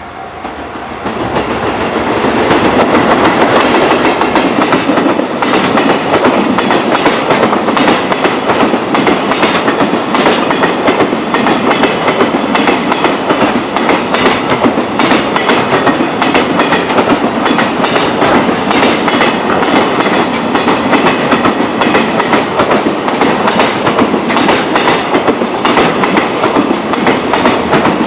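A freight train hauled by an EF210 electric locomotive passing close by, its wagons clattering over rail joints in a continual clickety-clack under a steady loud rumble. The noise builds up about a second in and holds without letting up.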